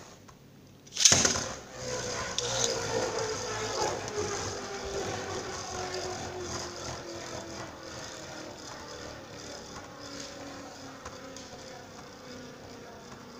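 Nightmare Longinus Beyblade Burst top launched into a plastic stadium with a sharp launch about a second in. It then spins and whirs on the stadium floor, its whine slowly falling in pitch and fading as it loses speed.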